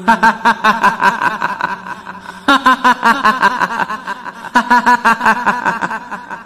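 Shrill, high-pitched cackling laugh: a rapid run of "hihihi" pulses, starting up anew twice, about 2.5 and 4.5 seconds in. It is the kuntilanak's laugh, the female ghost of Indonesian horror.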